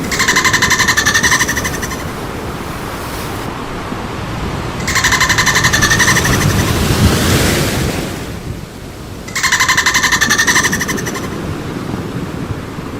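Dolphin burst-pulse calls: three buzzing calls made of rapid pulses, each about a second and a half long, spaced roughly four to five seconds apart over a steady wash of water noise.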